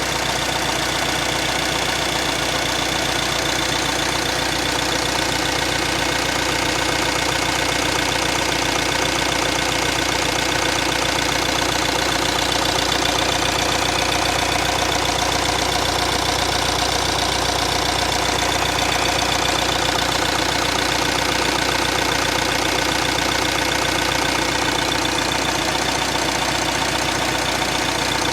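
Renault R9M 1.6 dCi four-cylinder diesel engine idling steadily with a fast, even knock. The owner does not know what is causing it.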